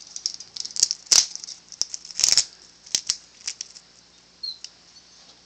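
Bare-eyed cockatoo's beak and feet clicking and scraping on wire cage bars: an irregular string of sharp clicks and short rattles. A brief faint squeak comes about two-thirds through.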